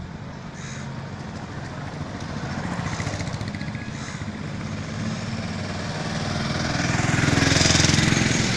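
Road traffic: motorcycle and auto-rickshaw engines running as they pass, with a steady low engine rumble. A car passing close near the end is the loudest sound, swelling and then easing off.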